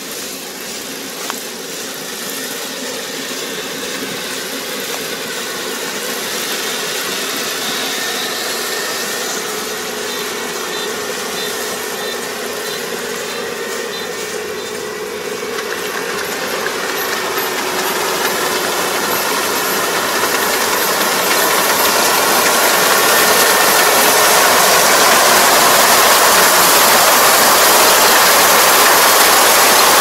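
Kubota ER470 four-row combine harvester running as it cuts lodged rice, its engine and threshing noise getting steadily louder as it comes closer, most of all in the second half.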